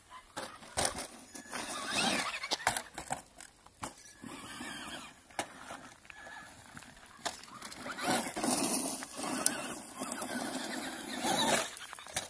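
Traxxas Rustler XL-5 RC buggy's brushed electric motor whining up and down in pitch as it is revved hard, with tyres scrabbling on dirt and sharp knocks as the buggy tumbles and lands from jumps.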